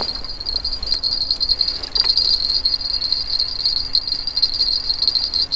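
Small bite-indicator bell on a fishing rod jingling without a break in a steady, high, shimmering ring while the line is reeled in.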